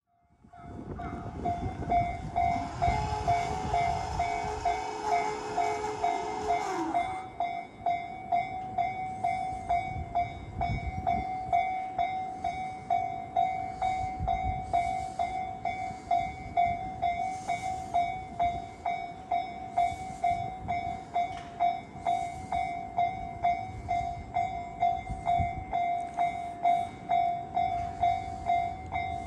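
Japanese level-crossing warning bell ringing in a steady, regular pulse as the gates stay down for an approaching train. A train passes during the first several seconds, its rushing noise and a held motor tone stopping abruptly about seven seconds in, leaving the bell ringing alone.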